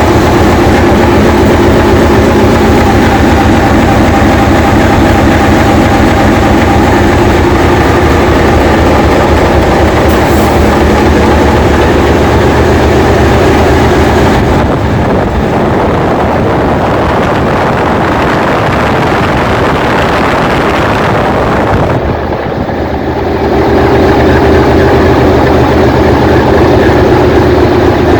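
Diesel engine of an English Electric DG-class locomotive running loud and steady. About halfway through it eases back a little, dips briefly a few seconds later, then picks up again to its earlier level near the end.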